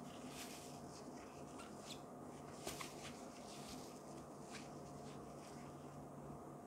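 Soft rustling and scratching of a shiny fabric drawstring pouch being handled and turned over in the hands, in scattered faint scrapes, over a faint steady hum.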